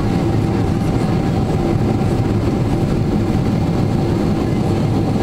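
Boeing 777-300ER cabin noise during the takeoff roll: the GE90-115B engines running at high thrust, heard through the fuselage as a steady loud rumble with a faint steady tone above it.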